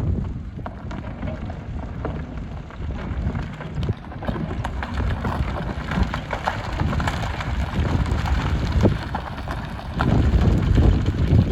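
Hyundai HX300 excavator working in aggregate: a low diesel rumble with a dense crackle of gravel and stones clattering and scraping, growing louder about ten seconds in.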